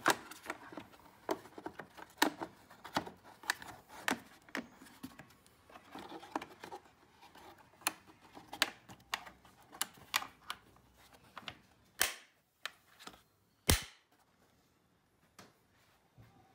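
Plastic fuse box cover being fitted back on, with irregular clicks and snaps of plastic against plastic, and two louder snaps near the end as the cover's metal wire latches are clipped shut.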